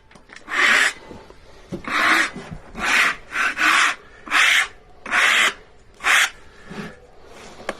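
A stiff brush sweeping sawdust off a freshly sawn cherry burl surface: about eight quick rasping strokes, each around half a second long.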